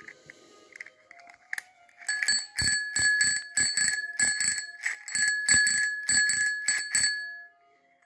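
A 1920 thumb-lever bicycle bell, restored from a rusted-up, seized state, rung rapidly over and over, about three to four strikes a second, with a clear steady ring. The ringing starts about two seconds in and dies away near the end.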